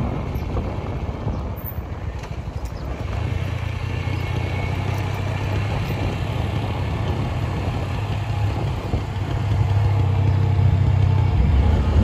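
An engine running with a steady low drone that comes in about three seconds in and grows louder toward the end.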